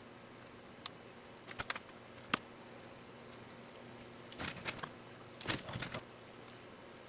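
Small sharp clicks and taps of a Phillips screwdriver and small screws as the screen-frame screws are driven back into a laptop lid, over a faint steady hum. A few single clicks come first, then two quick clusters of clicks.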